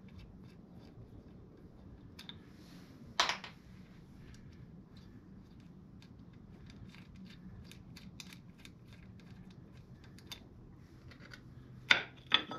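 Small, irregular metallic clicks and ticks of T25 Torx screws being backed out of a Harley M8 Softail's primary derby cover with hand tools, with a sharper knock about three seconds in and two loud metal clinks near the end.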